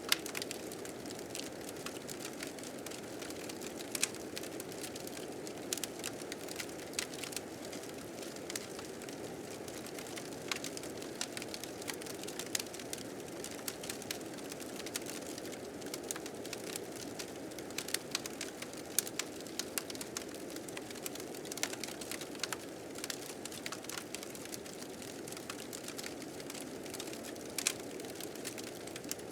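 Wood fire crackling with frequent sharp pops, over a steady low rush of blizzard wind.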